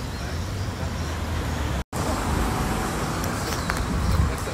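Steady roadside traffic rumble with wind buffeting the microphone, cut by a brief dropout about two seconds in.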